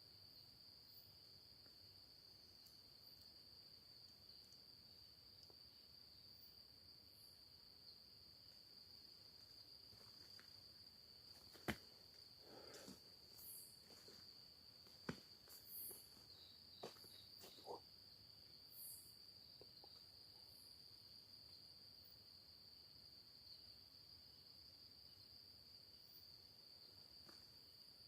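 Faint, steady high-pitched chirring of night insects. A few sharp clicks and short rustles come in the middle.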